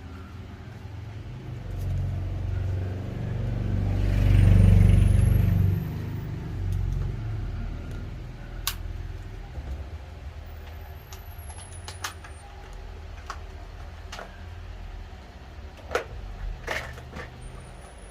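Low rumble of a passing motor vehicle, swelling to its loudest about four to six seconds in and then fading, with scattered sharp clicks and taps throughout.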